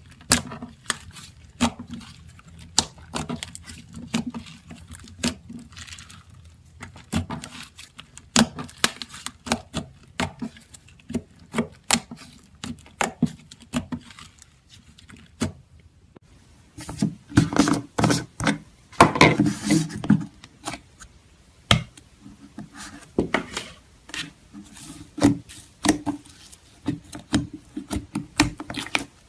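Slime being squeezed and pressed by hand, making many sharp clicks and pops, with a denser, louder run of crackling about two-thirds through.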